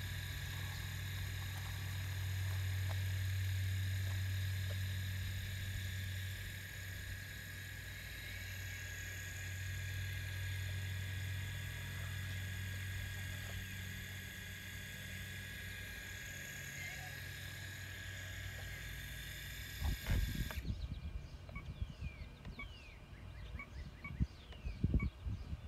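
Hydraulic pump motor of a radio-controlled Cat excavator running with a steady whine and hum, the low hum swelling twice as the arm digs and swings a load. The motor cuts off suddenly about twenty seconds in, leaving birds chirping and a few low thumps.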